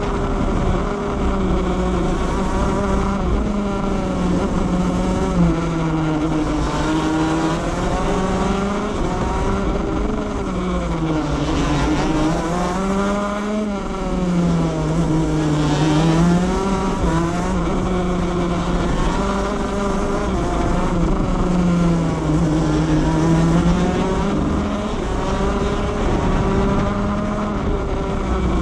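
Onboard sound of a 125cc two-stroke shifter kart engine at racing speed, its revs climbing and dropping again and again as it brakes into corners and accelerates out, with wind and road noise underneath.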